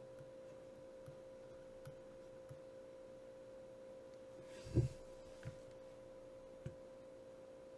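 Quiet room tone under a steady high hum, with a few faint taps and one louder dull thump a little past the middle.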